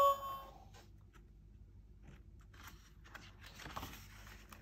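The sound book's recorded wolf howl, a steady held note played through its small speaker, cuts off about half a second in. After a near-quiet stretch, a paper page rustles and scrapes as it is turned, loudest a little before the end.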